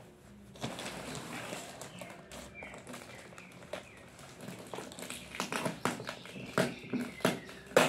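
Scissors snipping through the plastic wrapping of a parcel, with the plastic rustling. The snips are sharp clicks that come more often and louder in the second half, the loudest just before the end.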